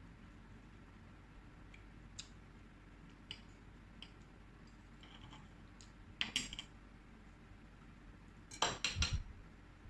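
Cutlery clinking against a plate: scattered light clinks, with a short cluster a little past six seconds in and a louder cluster of clinks near the end.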